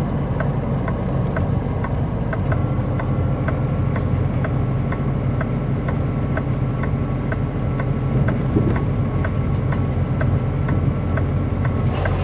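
Semi-truck diesel engine running, a steady low drone heard from inside the cab, with a regular light ticking about two to three times a second.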